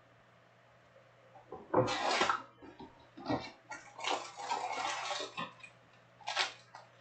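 A sealed Panini Prizm trading-card box being opened by hand: plastic wrap and foil packs crinkling and cardboard rustling in several short bursts.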